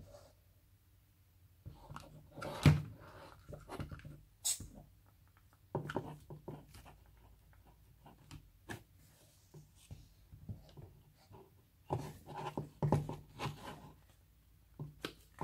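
Kinetic sand being scraped, pressed and cut with small plastic tools: soft gritty scraping with light clicks and taps, coming in bursts about two and a half seconds in, around six seconds, and again from about twelve seconds. One sharp tap near the start of the first burst is the loudest.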